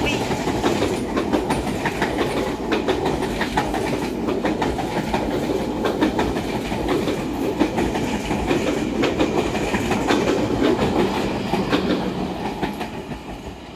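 KA Sancaka passenger train's carriages rolling past, their wheels clattering over the rail joints in a run of clicks. The sound dies away near the end as the train draws off.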